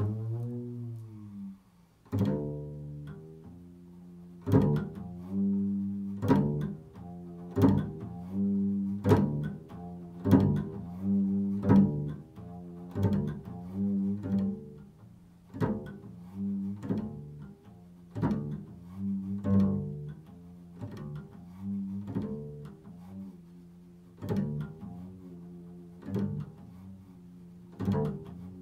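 Improvised solo on a low-pitched plucked string instrument in the double-bass range. Single notes are plucked about every one to two seconds and each rings out, and one note slides down in pitch at the start.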